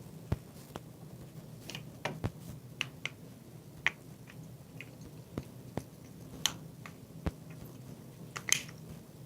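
Light plastic clicks and taps, irregularly spaced, from a Chevrolet Trax key fob's plastic shell halves being handled and lined up to fit back together.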